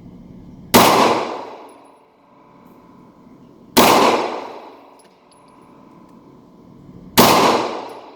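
Three 9mm pistol shots, about three seconds apart, each a sharp crack followed by about a second of echo.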